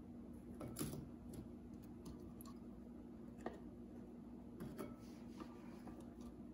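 Faint, scattered soft taps and clicks as milk-soaked ladyfingers are laid onto custard in a metal baking pan, over a steady low hum.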